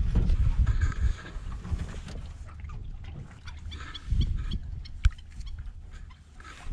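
Wind gusting on the microphone over open water, with faint bird calls and a single sharp knock about five seconds in.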